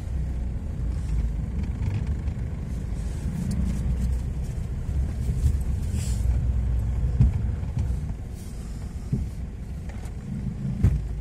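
Low rumble of a car driving over a rough track, heard from inside the cabin, with a few short knocks. It grows a little quieter about two-thirds of the way through.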